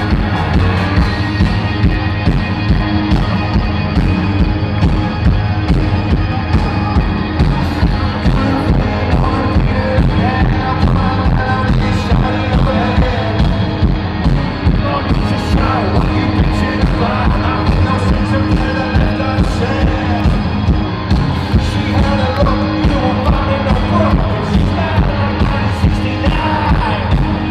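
Live rock band playing loudly over a steady drum beat, with a singer's voice coming in over the band.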